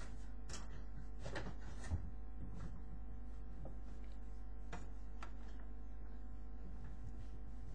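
Steady low hum with scattered light clicks and knocks, and a soft thump about two seconds in.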